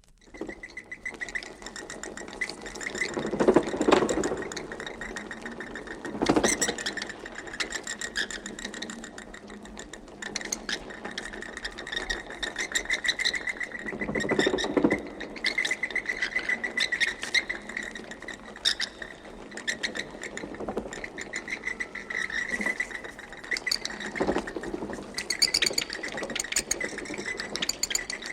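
Recorded sound effect of bats: a steady chorus of high squeaks with rapid fluttering clicks, swelling louder about four, six, fourteen and twenty-four seconds in.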